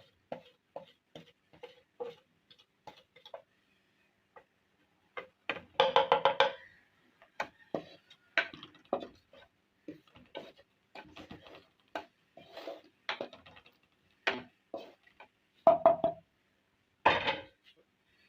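Kitchen clatter: a quick run of light knocks, then louder, scattered clanks of utensils against cookware, a few of them ringing briefly.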